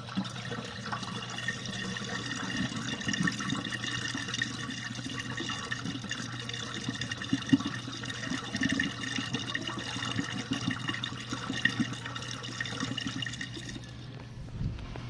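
GE dishwasher running at the end of its final rinse: a steady pump hum with water splashing and sloshing inside the tub. It stops about 14 seconds in as the rinse finishes.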